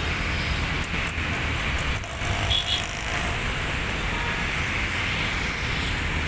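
Steady low rumble and hiss of distant engine noise, with a brief high chirp about two and a half seconds in.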